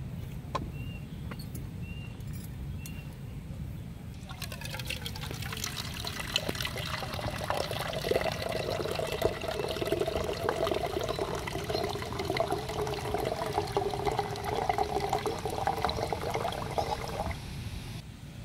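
Water poured in a stream into a clear plastic measuring jug, splashing steadily from about four seconds in and stopping shortly before the end.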